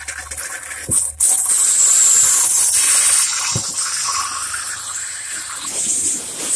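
Water rushing with a steady hiss, starting about a second in, loudest for about two seconds, then easing.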